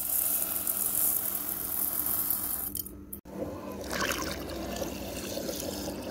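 Tap water running into a stainless-steel bowl of basmati rice, filling it to wash and soak the grains. The flow breaks off for a moment about three seconds in, then carries on.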